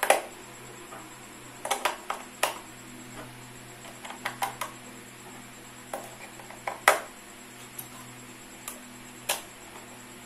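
AA batteries being pushed into the plastic battery compartment of a FlySky FS-i6X radio-control transmitter: irregular sharp clicks and knocks of the cells and plastic case, the loudest about two-thirds of the way through.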